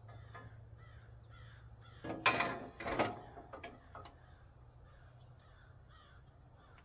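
A crow cawing: two loud, harsh caws about two and three seconds in, with fainter short calls before them.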